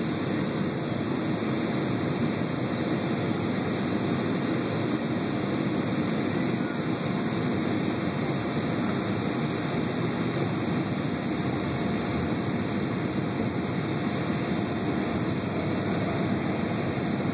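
Jet airliner cabin noise during descent: a steady, even rush of engines and airflow heard inside the cabin.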